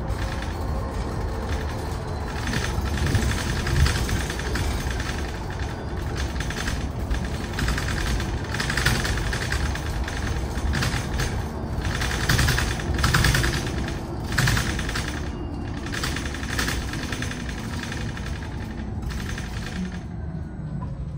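Inside a Mercedes-Benz eCitaro articulated electric bus under way: a steady low road rumble with irregular bursts of rattling and clattering from the body and fittings. Near the end the electric drive's whine falls in pitch as the bus slows.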